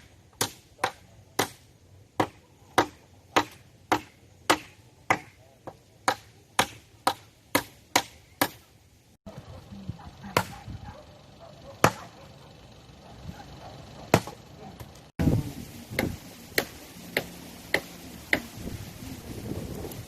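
Hammer driving nails, sharp strikes at a steady pace of about two a second for the first nine seconds, then fewer and more widely spaced blows.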